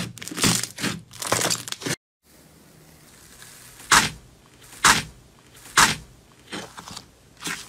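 Hands squeezing a fluffy slime with a dense crinkly crackle. After a brief break, a finger pokes into a soft pink slime in a bowl, making three sharp pops about a second apart, then two softer ones.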